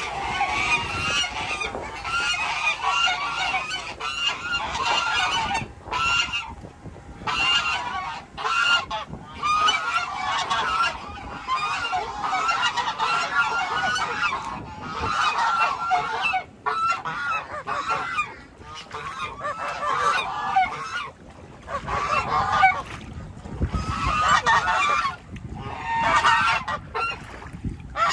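A flock of geese honking, many calls overlapping almost without pause.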